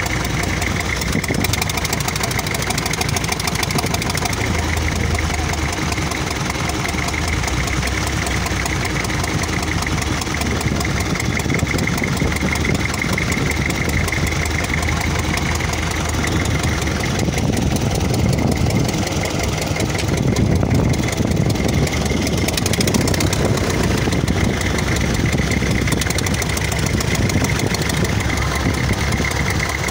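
A wooden fishing boat's inboard engine running steadily, loud and close.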